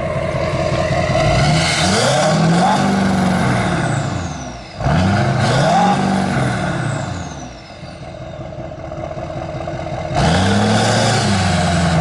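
LML Duramax 6.6 L V8 turbo-diesel pickup, emissions equipment intact with a DPF-back exhaust, revved three times from idle, the engine note climbing and falling back each time, with a falling turbo whistle as each rev drops off.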